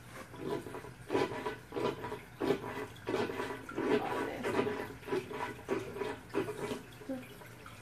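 Aquarium gravel vacuum siphoning water out of the tank, gurgling in irregular spurts as the tube is worked through the gravel. The spurts stop about 7 seconds in.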